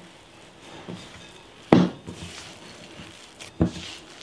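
Hands kneading and squishing stiff cookie dough in a ceramic mixing bowl, with two sharp knocks about two seconds apart, the first louder.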